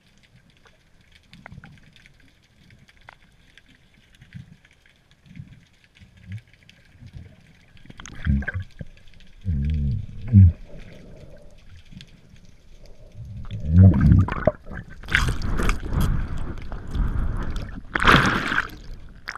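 Underwater water noise through an action camera's housing: muffled sloshing and bubbling with low thumps, growing louder in the second half, then loud splashing near the end as the camera comes up through bubbles toward the surface.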